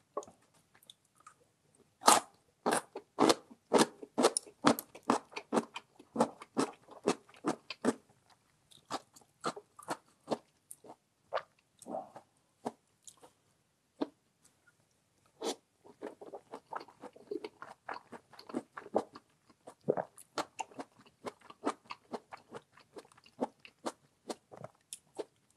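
A person chewing crunchy food close to the microphone: a run of crisp crunches, about two or three a second, loudest from about two seconds in, then softer chewing with a short lull in the middle before the crunching picks up again.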